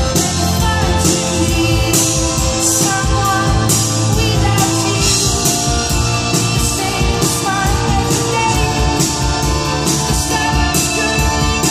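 Live pop-rock band music from a drums-and-keyboard duo: a steady drum beat with regular cymbal crashes over sustained keyboard chords.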